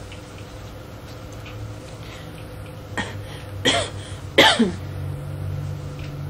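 A person coughing twice in quick succession, about three and a half and four and a half seconds in, the second cough louder, over the steady low hum and hiss of an old cassette recording.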